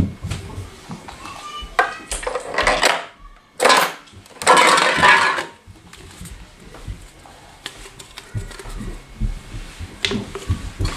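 A sharp click as a coin goes into a Lego vending machine, then bursts of hard rattling and clatter as an aluminium soft-drink can moves through the plastic-brick mechanism and is handled, with small knocks afterwards and more clatter near the end.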